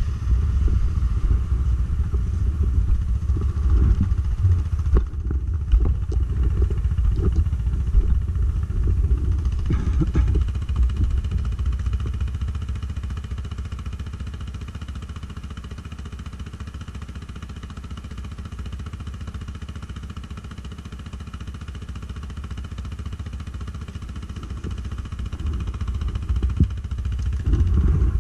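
ATV engine running, with some clatter over the first dozen seconds. It grows quieter through the middle and louder again near the end.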